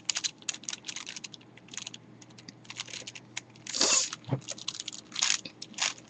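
Plastic layers of a 5x5 Rubik's cube clicking and clacking as they are turned by hand: quick runs of small clicks, then scattered turns with a louder clack about four seconds in.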